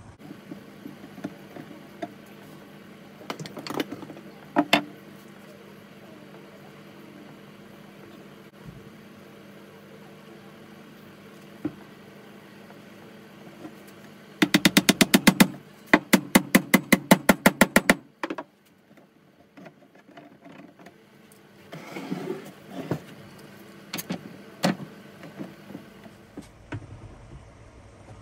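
Hammer driving a wooden dowel into a hole in a wooden tabletop: a fast, even run of sharp knocks lasting about three and a half seconds, a little past the middle. Before and after it come a few scattered knocks and clunks of handling, over a steady low hum.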